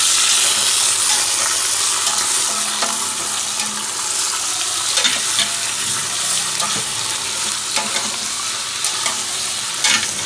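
Raw chicken pieces sizzling as they are sautéed with garlic and ginger in a hot stainless steel pressure cooker pot. A spatula turns them, clacking sharply against the pot a few times, loudest near the end. The sizzle is strongest at the start and eases a little.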